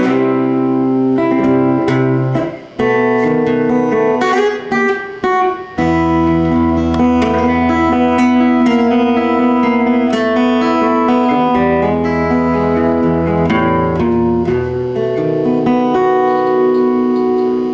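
Solo acoustic-electric guitar played through an amplifier as an instrumental introduction, picked and strummed chords with single notes over them. Deep bass notes ring under the chords through the middle stretch and drop out near the end.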